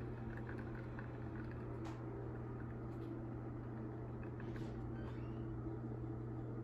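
A steady low electrical hum with a few faint clicks over it.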